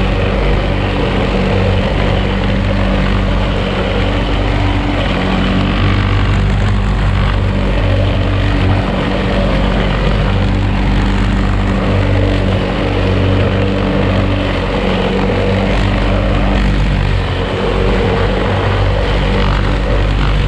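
OUTILS WOLF lawn mower running steadily at constant speed while cutting tall grass.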